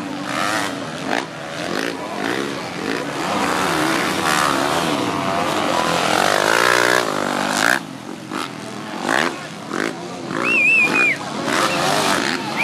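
MX2-class motocross bike engines revving up and down over and over, several bikes at once. A brief high warbling whistle sounds a little before the end.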